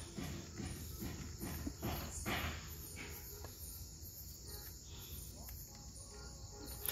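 Insects chirping steadily in a high, pulsing band, over faint soft handling noises of hands pressing a moist soil-and-chum mix onto a fishing feeder, with a brief rustle about two seconds in.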